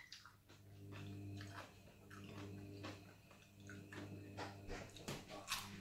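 A person chewing crunchy food close to the microphone, with scattered short crisp crunches over a steady low hum.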